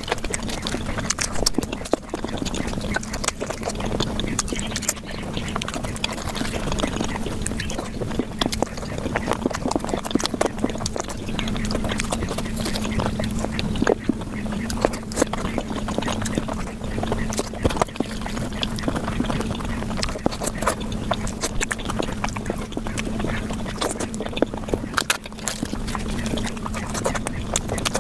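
Close-miked eating sounds sped up about five times: fast wet chewing, smacking and lip clicks from someone eating flatbread with curry, coming as a dense run of quick clicks over a steady hum-like drone, squeaky enough to resemble quacking.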